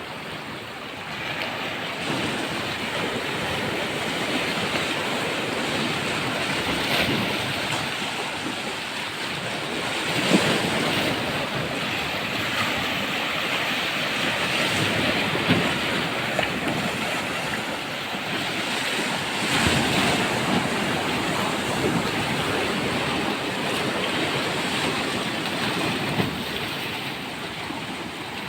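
Sea waves breaking and washing on the shore in repeated swells, with wind on the microphone.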